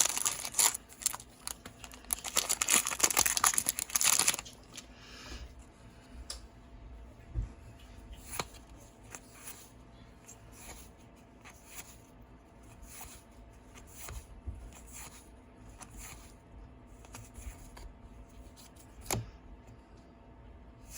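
Booster pack wrapper crinkling and tearing open for about the first four seconds, then quieter repeated soft slides as trading cards are flipped through one by one, with a single sharp click near the end.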